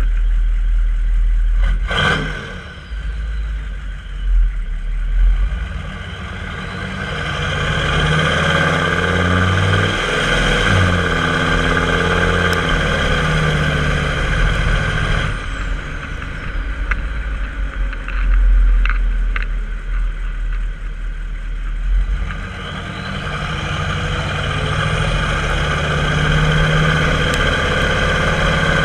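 6.5-litre turbo-diesel V8 of a 1995 Chevy K3500 dually running through a 4-inch open turbo-back exhaust, with one sharp click about two seconds in. It pulls up twice, the turbo whistle rising as it accelerates and falling away in between.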